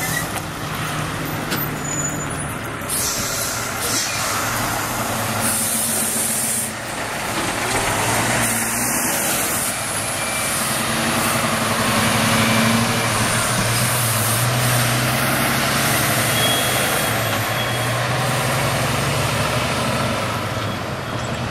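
International semi tractor's diesel engine pulling a trailer away and accelerating, its note rising in the second half. Several short hisses of air, typical of air brakes releasing, come in the first ten seconds.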